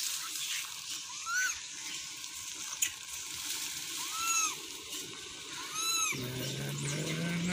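Rhesus macaques giving short arched coo calls, each rising and falling, three times over a steady background hiss. A low steady hum comes in about six seconds in.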